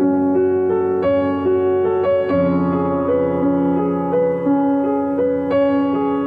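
Background music: a slow piano melody over sustained chords.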